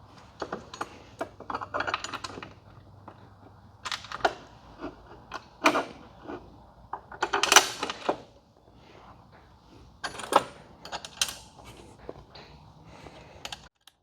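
Metal hardware clicking and clinking in irregular clusters as a bolt, washers and a lock nut are fitted through a steel bracket by hand.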